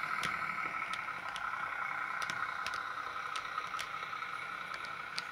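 Bachmann OO-gauge Windhoff MPV model train running along the track under its sound decoder: a steady whirring hum with scattered sharp clicks of the wheels over rail joints and points, easing off a little as it draws away.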